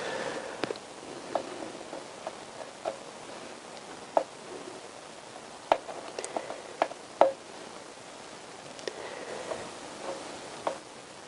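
Light, irregular clicks and taps from handwork at the aluminium crankcase as sealant is run around the joint face, over a steady hiss.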